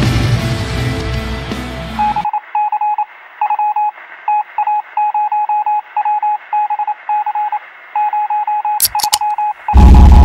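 Music fades out, then a string of electronic beeps on one steady tone, short and longer ones in irregular groups like Morse code, sounding thin as if over a radio. A short crackle comes near the end, and loud bass-heavy music cuts in just before the end.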